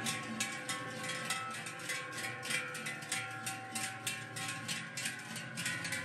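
Many large cowbells clanking and ringing irregularly as a herd of cows walks past, the clanks overlapping into a continuous jangle.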